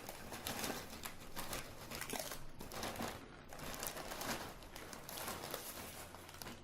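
Food packaging crinkling and rustling, irregular and crackly, as it is handled during the meal.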